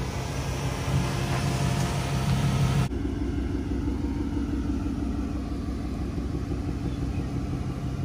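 Ford Mustang GT's 5.0 L Coyote V8 idling with a steady low rumble; the sound changes abruptly about three seconds in.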